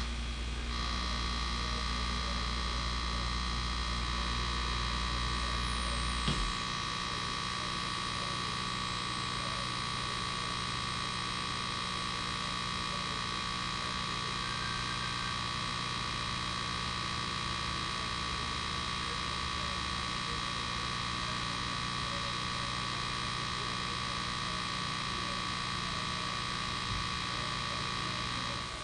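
Steady electrical buzz and hum from a vintage Admiral television's speaker while the station shows a still slate and sends no programme sound. The deepest part of the hum drops out about six seconds in.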